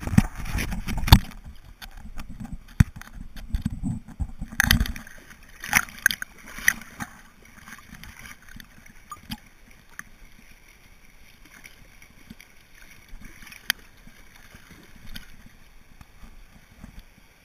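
River water splashing and gurgling right at the water line, with several loud splashes in the first seven seconds, then quieter lapping and gurgling.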